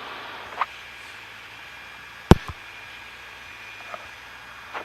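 Steady hiss of the Cessna 150's headset intercom feed, with the engine running faintly beneath it, broken by one sharp click about two and a half seconds in and a few softer ticks.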